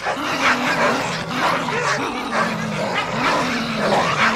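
Siberian husky vocalizing in drawn-out, wavering whines with short yips between them, the pitch holding, stepping and bending from call to call.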